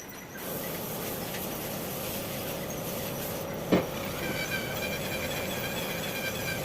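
A valve on a diesel cylinder head being lapped into its seat with grinding compound: a steady, gritty grinding rub of valve face against seat. There is one sharp knock a little past halfway.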